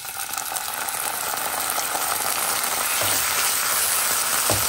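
Diced pressed tofu and carrot frying in oil in a nonstick pan, the sizzle growing louder as spicy chili bean paste goes in. A wooden spatula knocks a few times against the pan while stirring, about three seconds in and again near the end.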